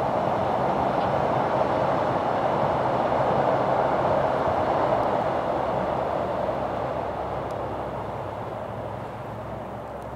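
Freight train of car-carrier wagons loaded with cars crossing a steel truss railway viaduct: a steady rolling noise of wheels on rails and bridge, loudest about four seconds in and fading away over the second half as the train moves off.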